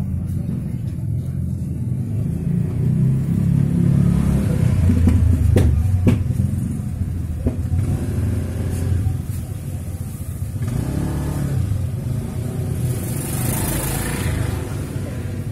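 A low, steady engine-like rumble, swelling and easing, with a few sharp clicks around the middle.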